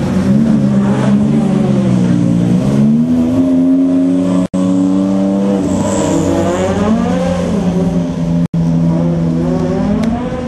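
Rally car's engine revving hard, its pitch climbing and falling again and again as the driver accelerates through the gears and lifts.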